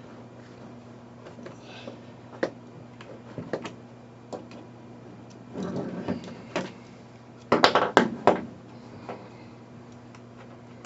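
Scattered clicks and knocks of plastic parts, screws and nuts being handled while an Arkel pannier's backing plate is fitted to the bag. There is a short rustle about six seconds in and a quick cluster of louder clacks near eight seconds, over a steady low hum.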